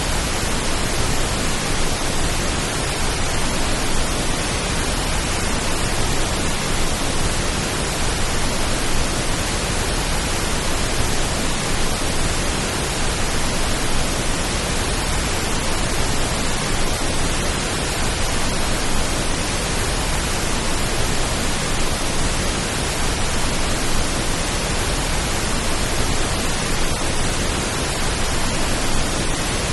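Steady pink noise: an even, unchanging hiss with no drops, pulses or changes, a rain-like sleep sound.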